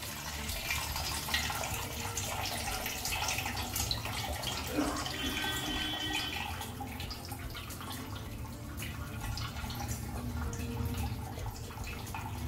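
Soaking water pouring off a bowl of soaked basmati rice into a steel bowl below, the stream thinning to a trickle with scattered drips.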